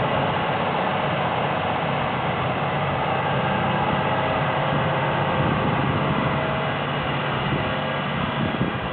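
Engine of a small well-drilling truck running steadily as the truck drives off, getting a little quieter near the end.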